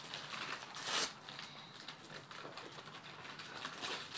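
Christmas wrapping paper rustling and tearing as gifts are unwrapped, with one louder rip about a second in.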